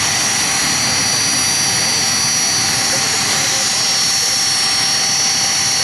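BAE Hawk jet trainers' Adour turbofan engines running at idle on the ground: a steady jet rush with a constant high whine.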